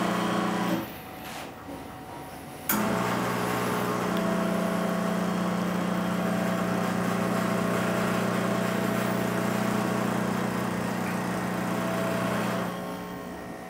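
Turin Gallatin espresso machine's pump humming steadily while it pushes against a blind basket, holding the machine at its maximum brew pressure of about 11 bar, the factory OPV setting. It cuts out under a second in, starts again suddenly about two and a half seconds in, and runs for about ten seconds before stopping near the end.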